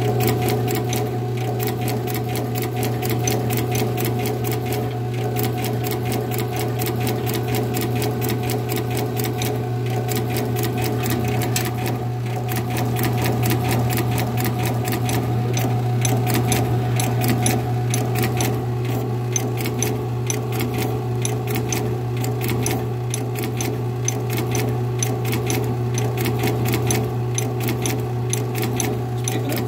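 Automatic rhinestone-setting machine running: the vibratory bowl feeder hums steadily while the pick-and-place head clatters in rapid, even clicks. The machine is dropping the stones and throwing them back toward its rear instead of setting them.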